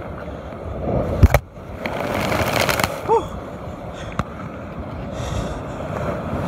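Surf washing over shoreline rocks, with wind buffeting the microphone, and a loud knock about a second in as something bumps against the camera or rocks.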